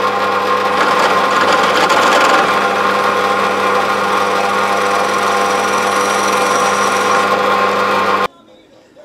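Bench drill press running, its bit drilling through thin sheet metal: a steady motor hum with a harsher cutting noise over it, which cuts off suddenly near the end.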